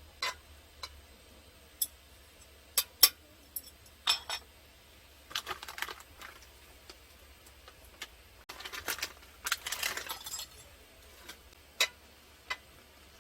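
Small hard objects clicking and clinking as they are handled, in scattered single knocks with a few short busier rattles of several clinks together.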